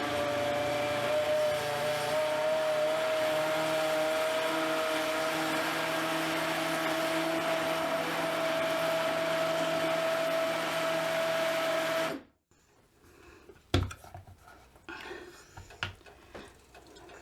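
Vitamix blender running steadily with a steady whine, pureeing thick navy bean soup to a cream, then switching off abruptly about twelve seconds in. A few light knocks follow near the end.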